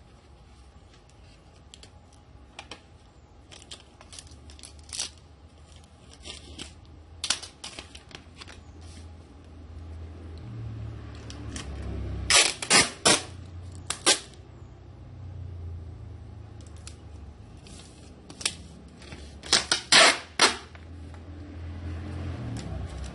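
Scattered sharp clicks and knocks over a faint low hum, with two clusters of loud clacks, one about halfway through and one near the end.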